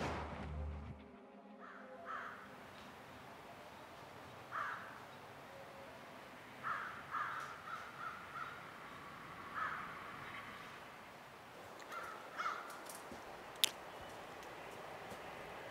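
A bird cawing: about ten short, harsh calls, some single and one quick run of about five, with a single sharp click near the end.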